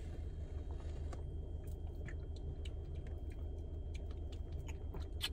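Drinking sounds from a plastic soda bottle: small sips, swallows, lip smacks and clicks, with a sharper cluster of clicks about five seconds in. A steady low hum from the car's air conditioning runs underneath.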